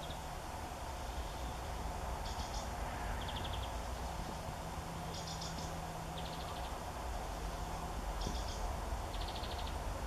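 A small bird calling three times, about every three seconds: each call is a short high note followed by a slightly lower, rattly trill. Underneath is a steady background hum and rumble.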